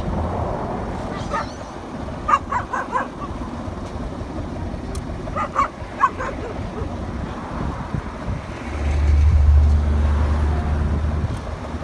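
Short, sharp barking animal calls: one, then a quick run of four or five, then two more, over a steady outdoor background. Near the end comes a loud low rumble of wind on the microphone.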